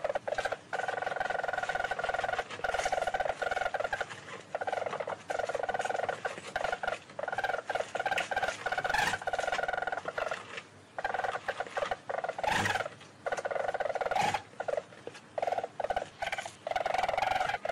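A small carnivore chattering: long runs of rapid, steady calls broken by short pauses, with a few sharp clicks in the middle.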